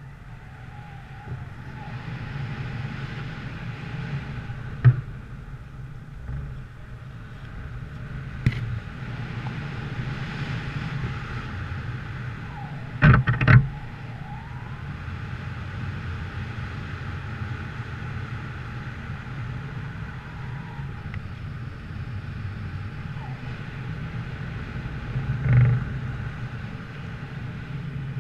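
A vehicle engine running steadily, with a few knocks and bangs; the loudest cluster comes near the middle.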